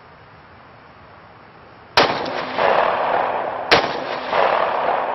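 Two 9mm pistol shots from a Glock 17, about two seconds in and again under two seconds later, each followed by a long noisy echoing tail.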